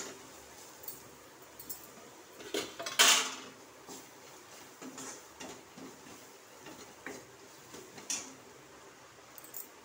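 A metal spatula scraping and knocking against a metal kadhai as onions and spices are stirred, in scattered strokes, the loudest about three seconds in.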